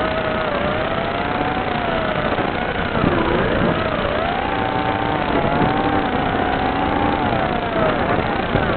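Small FPV quadcopter's electric motors and propellers whining, the pitch rising and falling with the throttle and dropping sharply about three seconds in and again near the end.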